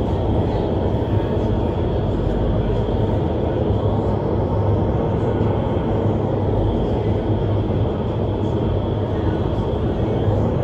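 Vertical wind tunnel for indoor skydiving running at flying speed: a steady, loud rush of air with a deep rumble underneath.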